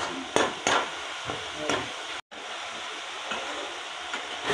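Masala gravy hissing steadily as it cooks in a steel kadai on a gas stove, with three sharp metal clinks of utensils against the pan in the first second.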